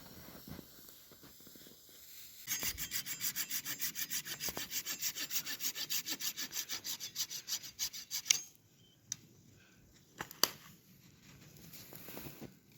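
Hand saw cutting firewood with quick, even back-and-forth strokes, about six a second, for around six seconds. It stops, and a couple of sharp knocks follow.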